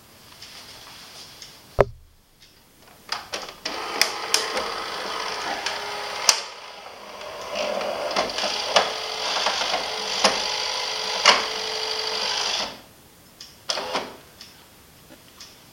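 Saeco Vienna Deluxe espresso machine running through its power-on cycle. A sharp click, then about nine seconds of steady mechanical running with clicks and knocks, dipping briefly in the middle and cutting off suddenly, followed by a few more clicks. These are the startup noises the owner finds weird and is unsure are normal.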